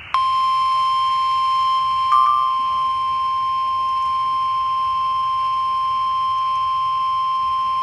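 NOAA Weather Radio 1050 Hz warning alarm tone: a single loud, steady tone that starts abruptly, with a brief slightly higher blip about two seconds in. It signals that a warning broadcast, here a severe thunderstorm warning, is about to follow.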